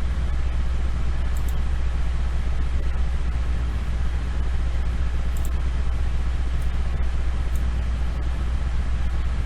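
Steady low hum over an even haze of background noise, with a few faint high clicks.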